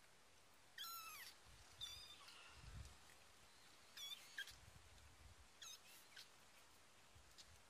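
Month-old kittens mewing: about five short, faint, high-pitched mews, each falling in pitch, with soft rustling of fur on the blanket between them.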